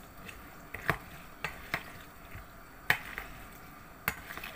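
A spoon stirring a creamy pasta salad in a large ceramic bowl, with several sharp, irregularly spaced clinks as the spoon knocks against the bowl.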